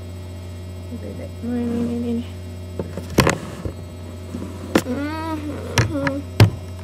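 Steady electrical mains hum, with a few sharp knocks and clicks of the devices being handled and set in place, and two brief hummed or murmured vocal sounds, the second wavering in pitch.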